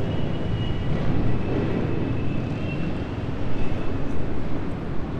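Steady low rumble of motor engines, with no single sharp event.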